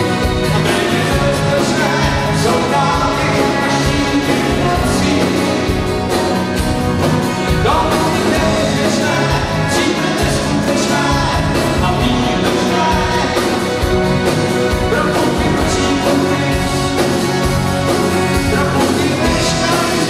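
Live rock band playing a song with sung vocals over acoustic guitar, bass guitar and a steady drum beat.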